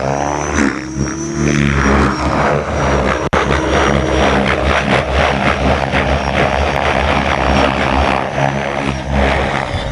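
Electric-converted T-Rex 700 RC helicopter running, its main rotor chopping the air over the whine of the Neu 1915 brushless motor under a Kontronik Power Jazz speed controller. The sound is loud and steady, with a momentary dropout about three seconds in.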